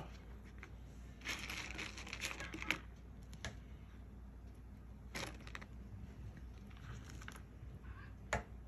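Faint rustling and light taps of hands handling corn tortillas and food on paper plates, filling tacos with meat and onion. A cluster of rustles comes in the first few seconds, then a few separate taps, the sharpest near the end.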